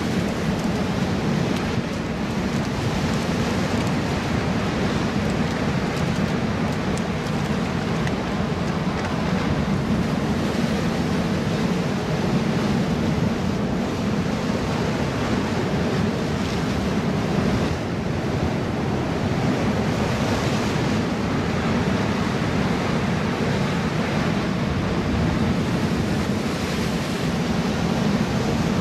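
Ocean surf breaking and washing over the boulders of a rock wall, a steady rush of white water, with wind buffeting the microphone.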